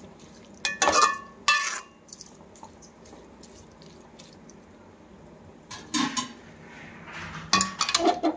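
Steel spoon stirring grated beetroot in a steel kadai, scraping and knocking against the pan. Several ringing metal clanks come twice about a second in, once around six seconds, and in a quick cluster near the end.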